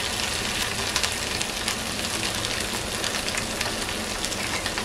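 Marinated boneless chicken pieces deep-frying in hot oil in an iron kadai on a low gas flame: a steady sizzle with constant fine crackling.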